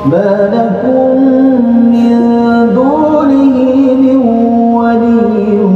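A man's voice reciting the Quran aloud in a melodic, drawn-out chant during the dawn prayer. He holds each note for a second or more and slides up or down between notes.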